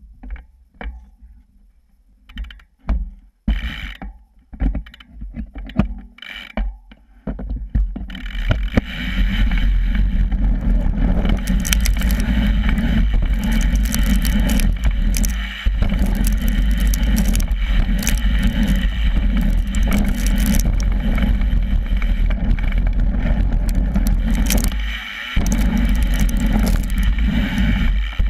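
A BMX bike heard from a camera under its frame: first a few seconds of scattered knocks and clicks on a wooden start ramp, then, about eight seconds in, a loud steady rumble and crunch of tyres rolling over gravel and dirt, with drivetrain rattle and wind. The rolling noise drops out briefly twice.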